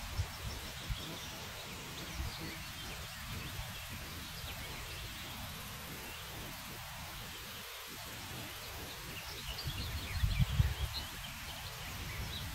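Summer meadow ambience: a steady hiss of outdoor air with several small birds chirping faintly throughout. About ten seconds in, gusts of wind buffet the microphone with a low rumble.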